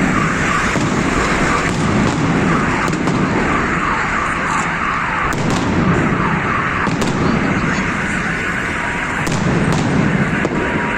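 Large fireworks salute bursting overhead: a continuous crackling din with separate sharp bangs every second or two. Car alarms set off by the blasts wail underneath.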